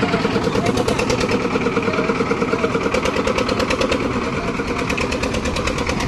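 Engine of a lift-type concrete mixer machine running steadily, with a rapid, even pulsing.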